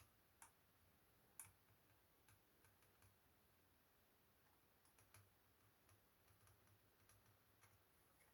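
Near silence broken by faint, irregular small clicks of laptop parts being handled, about a dozen scattered through, the sharpest about a second and a half in.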